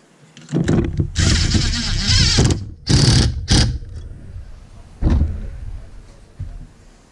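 Valve spring compressor being tightened down on a valve spring of an LS cylinder head with a hand tool: metallic ratcheting and scraping in several bursts, a long one first, then two short sharp ones and one more a little later.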